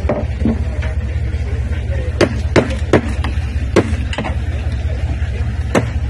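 Claw hammer striking and breaking through a boat's floor panel: a run of about six sharp blows starting about two seconds in, over a steady low hum.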